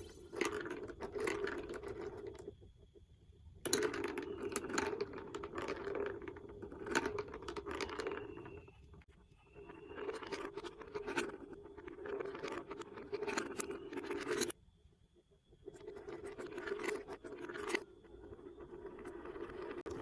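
Plastic marble run building blocks clattering and scraping, in rattly stretches of several seconds that stop and start abruptly.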